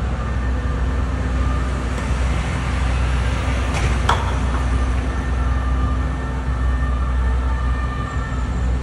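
Steady city street traffic rumble, with one sharp knock and a short ring about four seconds in.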